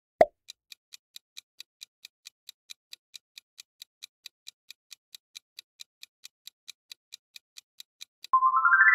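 Quiz countdown timer sound effect: a short pop, then even clock-like ticking at about four to five ticks a second, ending near the end in a bright chime that steps upward in pitch and rings on, signalling that time is up.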